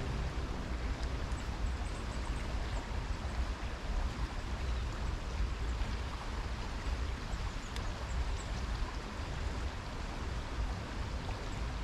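A swollen river in flood rushing past: a steady wash of water noise with a low rumble underneath.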